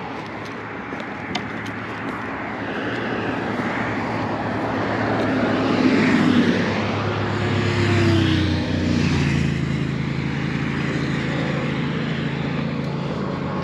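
Cars passing on a highway: tyre and engine noise swells as an SUV goes by close about six seconds in, and again about two seconds later. After that a steadier engine hum from an approaching vehicle carries on to the end.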